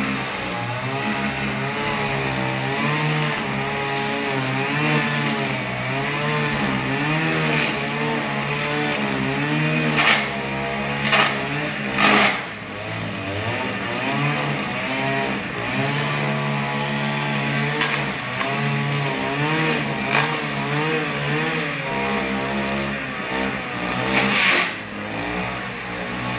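Petrol string trimmer running as it cuts grass, the engine pitch wavering up and down as it is throttled and loaded. It surges louder a few times about ten to twelve seconds in and once more near the end.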